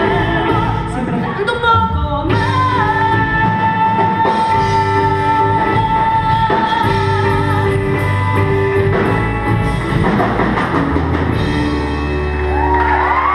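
Live pop-rock band with drum kit playing behind a woman singing lead; she holds one long note for several seconds near the start. The band thins out near the end, leaving a steady low bass.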